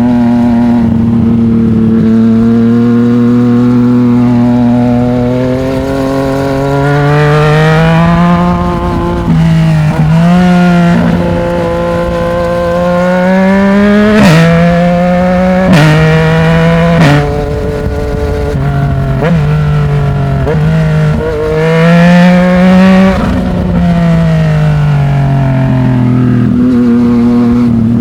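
Yamaha MT-09's three-cylinder engine through a Black Widow 200 mm slip-on exhaust, ridden and pulling through the gears: the pitch climbs under throttle and drops sharply at each upshift, several times in quick succession in the middle, then falls away as the bike slows before settling to a steady cruise near the end.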